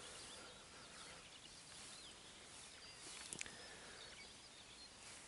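Near silence: faint outdoor ambience with a few faint, high bird chirps and one soft click a little over three seconds in.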